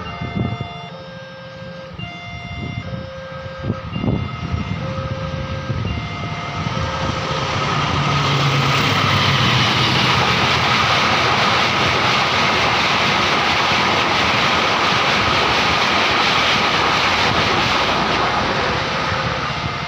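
Railway level-crossing warning siren repeating its pattern of short electronic tones at different pitches. A train then passes close by with a loud, steady rumble that builds from about six seconds in and drowns the siren, which comes through again near the end.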